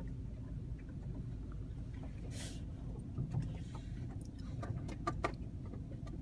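Steady low rumble of a car heard from inside the cabin, with a short hiss about two and a half seconds in and a run of sharp clicks and taps near the end, as birds swarm over and onto the car.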